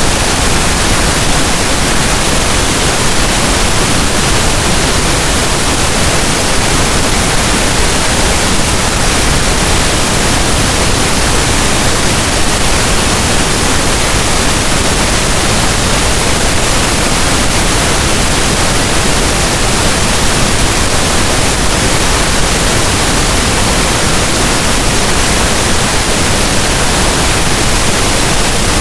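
Steady, loud pink noise: an even hiss with no tones, breaks or changes.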